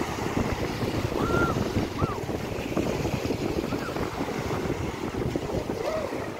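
Wind buffeting the microphone over the steady rush of rough sea surf on a beach, with a few short high calls in the background.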